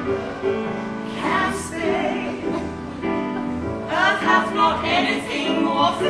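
Music: a women's vocal trio singing a song in harmony over accompaniment, with long held notes that waver in pitch.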